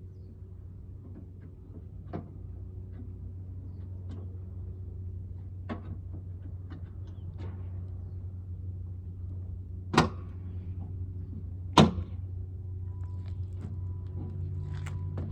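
Plastic turn-signal housings being handled and snapped into a BMW E36's front corner: a few light clicks, then two loud sharp snaps about two seconds apart, over a steady low hum.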